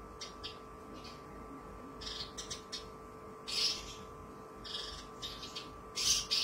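Caged Javan bush lark (branjangan) singing: a run of short, sharp, harsh chirps at irregular spacing, the loudest about three and a half seconds in and again near the end, over a faint steady hum.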